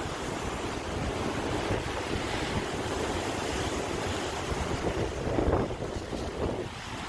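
Sea surf: waves breaking and washing in a continuous rush with a low rumble, swelling louder about five and a half seconds in.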